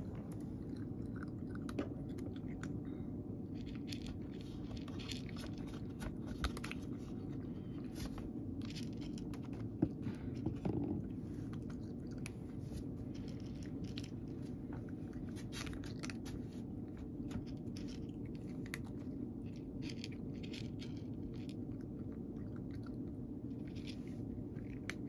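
A cat crunching dry kibble, many short irregular crunches over a steady low hum, with one louder knock about ten seconds in.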